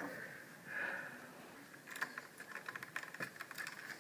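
Faint, rapid small clicks and rattles of plastic from hands working on a laptop's screen bezel and hinge area during reassembly. The clicks come thick from about halfway in.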